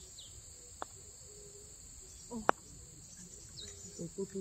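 A putter strikes a golf ball with a single sharp click about two and a half seconds in, preceded by a fainter tick. Under it runs a steady high insect drone with a few short bird chirps.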